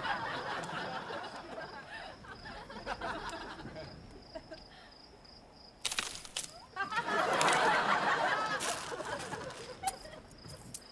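Studio audience laughing, dying away over the first few seconds. Two sharp knocks come about six seconds in, and the laughter swells again right after them.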